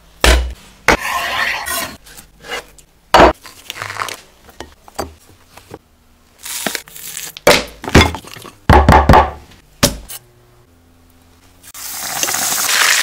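A run of sharp knocks and thumps, the two loudest in the first few seconds and a quick cluster about eight to nine seconds in. About twelve seconds in, a breaded fish fillet starts to sizzle as it goes into hot frying oil, the hiss swelling to a loud, steady sizzle.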